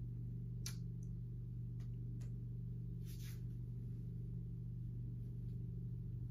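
Steady low hum of room tone, with a few faint clicks and a short soft rustle about three seconds in.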